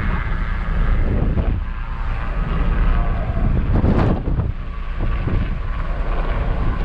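A steady engine drone mixed with wind rumbling on the microphone, with a brief louder swell about four seconds in.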